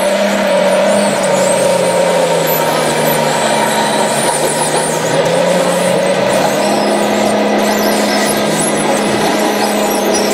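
Radio-controlled crawler bulldozer driving on its tracks: a steady machine drone with a hum that wavers slightly in pitch.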